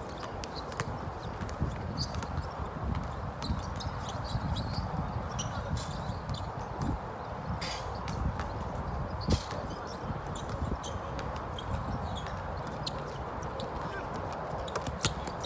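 Basketball bouncing on an outdoor court: irregular sharp thumps and taps, the sharpest a little after nine seconds in, over a steady low rumble.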